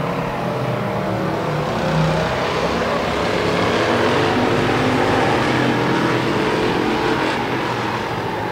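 Several race-car engines run hard together as the field laps the track on the final lap. The overlapping engine notes rise and fall against each other, swelling as the pack comes by in the middle and easing near the end.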